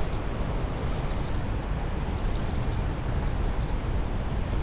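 Steady rushing noise of fast river current, with short recurring bursts of fine high clicking from the spinning reel as a hooked smallmouth bass is fought.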